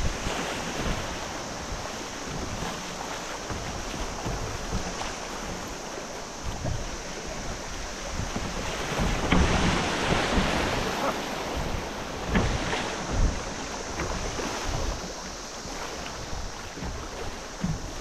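Wind buffeting the microphone over rushing, high river water as a kayak drifts in a fast current. The noise swells about halfway through, and a couple of short knocks follow soon after.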